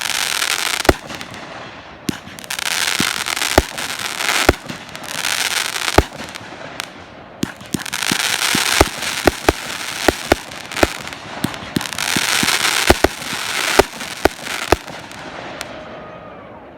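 Aerial fireworks display: a string of sharp shell bursts going off irregularly, with stretches of crackling sizzle from crackle shells in between, dying away near the end.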